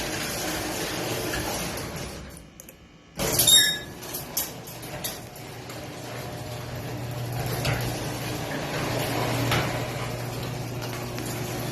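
Garage door opener starting up with a sudden clunk about three seconds in, then a few rattles and a steady motor hum as the door travels.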